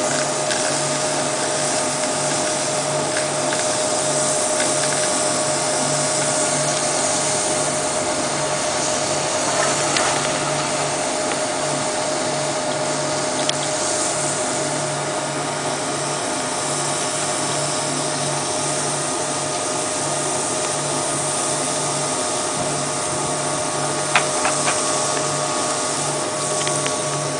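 Sawdust briquette press running steadily under its 15 kW electric motor: a continuous mechanical noise with a steady whine and a low hum that pulses evenly, a little faster than once a second. There is a single sharp click about 24 seconds in.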